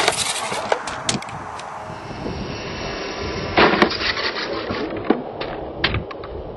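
Belt CP electric RC helicopter with an MD500 scale body breaking apart in mid-air: a sharp crack followed by a scatter of snapping and clattering pieces. About two seconds in, the same breakup is replayed at half speed, so the crack comes again lower and drawn out, followed by more scattered snaps.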